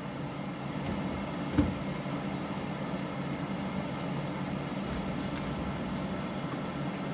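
Steady low mechanical hum, with one short sharp knock about one and a half seconds in.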